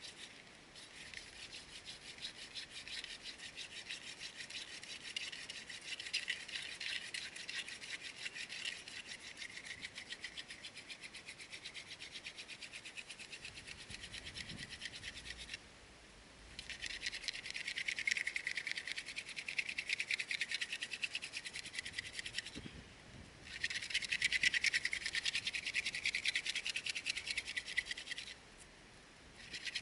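Hand drill fire-making: a wooden spindle spun back and forth between the palms, grinding into a wooden fireboard with a fast, scratchy rubbing. It runs in long bouts broken by three short pauses, and grows louder after the first pause, about halfway through.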